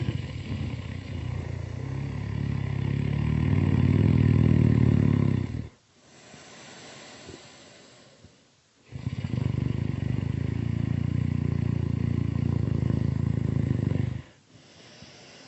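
Loud, drawn-out snoring: two long rattling snores of about five seconds each, each followed by a quieter breathy exhale.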